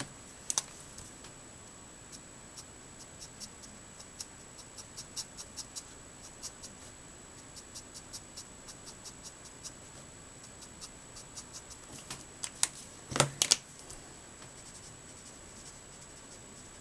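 Light ticks and scratches of a marker tip dabbing and stroking on card, several in quick runs, with a couple of louder clacks about three-quarters of the way in.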